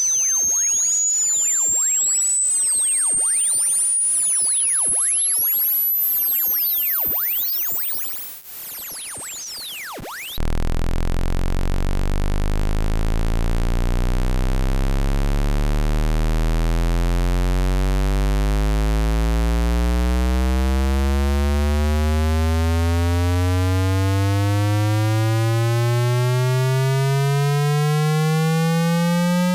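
Electronic test tones: a high-pitched pure tone sweeps steadily upward until it thins out near the top of hearing, then about ten seconds in a harsh, buzzy low tone cuts in and glides slowly upward in pitch.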